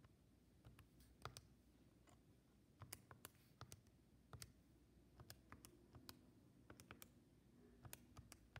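Faint, irregular clicks of a TI-84 Plus graphing calculator's plastic keys being pressed one after another, about two dozen presses as an integral expression is keyed in.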